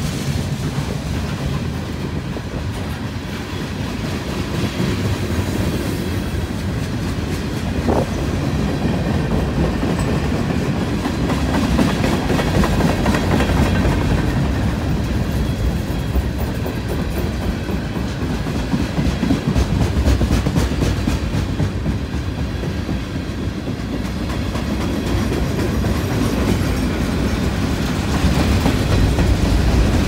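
Freight train's boxcars and tank cars rolling steadily past at close range, their steel wheels clicking over the rail joints.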